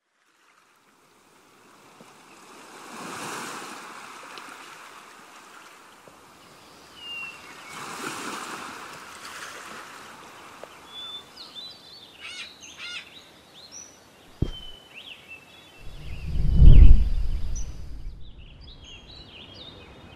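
Outdoor ambience: two slow swells of rushing noise, then birds chirping and calling for several seconds. Near the end come a short knock and a deep rumble, the rumble being the loudest sound.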